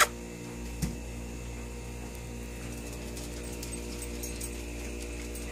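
Faint scattered clicks of a cat licking a kitten's fur, over a steady electrical hum, with one soft thump about a second in.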